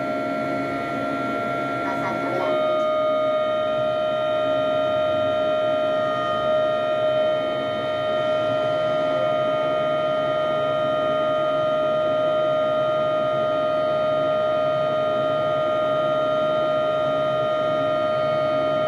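Deck crane machinery whining steadily at a fixed pitch, heard from inside the operator's cab while the boom is worked, growing slightly louder and fuller about two and a half seconds in.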